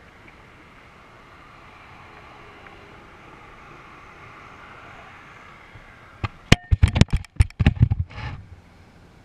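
Balloon payload and camera line hitting the asphalt road surface on landing: about six seconds in, a quick run of loud, sharp knocks and clatters over about two seconds as it strikes and tumbles. Before that, only a faint steady rushing noise while it descends under its parachute.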